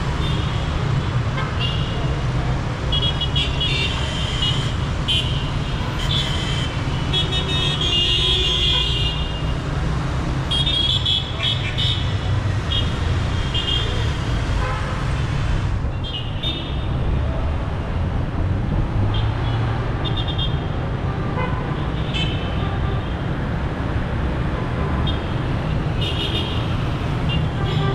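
Busy city street traffic: a steady rumble of engines with frequent short horn toots from cars and motorbikes. The honking comes in clusters, heaviest about a third of the way in.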